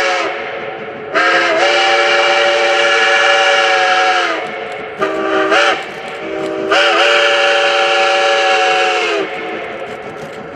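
Whistle of Polson Logging Co. No. 2, a 1912 2-8-2 Mikado steam locomotive, sounding a chord of several notes at once. A blast ends just after the start, then come a long blast, a short one and another long one, with each note bending up as it starts: the long-long-short-long grade-crossing signal. The running train is heard more quietly between blasts and after them.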